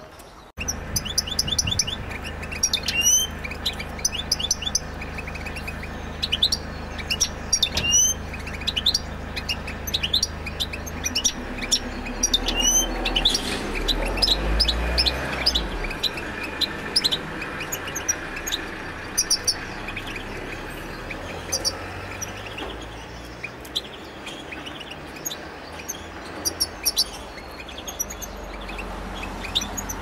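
European goldfinch song: a fast, continuous twittering of high chirps and trills, broken by a few quick sweeping notes, over a low steady hum.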